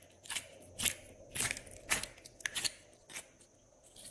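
Pink slime squeezed and pulled by hand, giving a run of short, sharp sticky clicks and crackles about twice a second.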